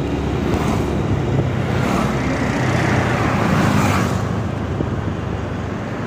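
A TVS scooter's small single-cylinder engine running steadily under way, with road and traffic noise around it. A rush of noise swells and fades about halfway through.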